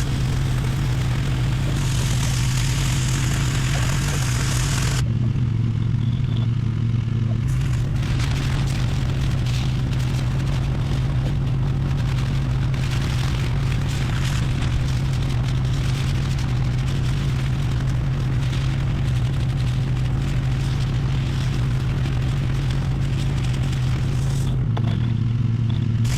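Pressure washer engine running steadily with the hiss of the spray over it. The hiss drops away twice for a couple of seconds while the engine keeps running.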